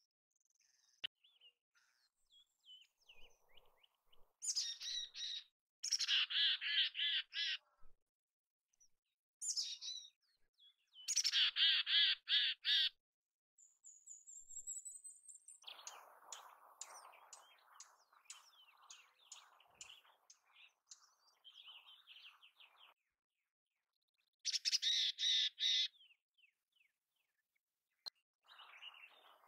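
Mountain chickadee giving its chick-a-dee call three times: a few high notes, then a run of harsh, buzzy dee notes. A quieter scratchy chatter with rapid ticks comes in between.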